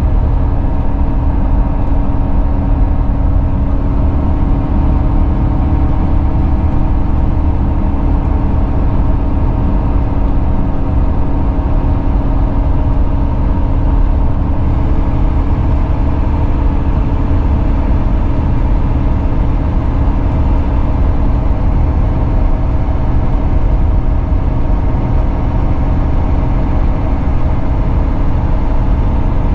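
Cabin sound of a Volvo B9R coach (Caetano Levante body) cruising at steady speed, heard from inside. Its six-cylinder diesel gives an even drone under a heavy rumble of road and tyre noise.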